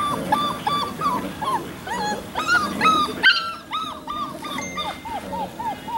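Five-week-old puppies yipping and whining in quick high-pitched calls, about four a second, with a short pause about halfway.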